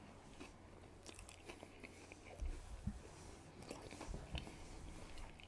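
Faint close-miked chewing of a mouthful of burger slider: small irregular wet mouth clicks and smacks, with a few soft low thumps in the middle.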